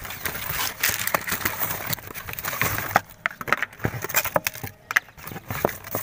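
Cardboard box being handled: scraping and rustling as a hand rummages inside it and moves its flaps, with many irregular small clicks and knocks.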